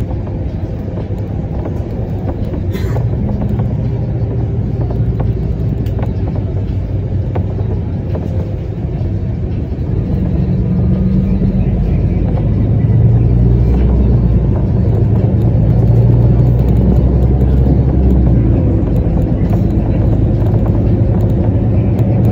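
Engine and road rumble of a moving road vehicle heard from inside its cabin, low and steady, growing louder about halfway through as it picks up speed.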